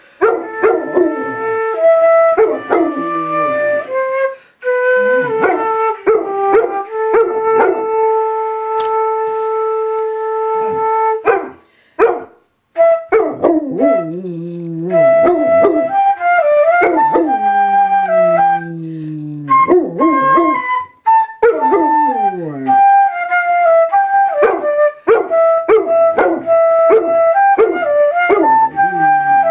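A flute playing a tune of held notes while a dog howls along with it, several of its howls sliding down in pitch.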